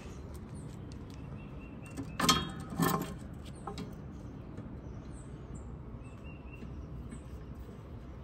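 Two short, loud clanks about two seconds in, half a second apart, from the old hinge hardware and rusted band of a Big Green Egg ceramic grill being handled, with faint bird chirps in the background.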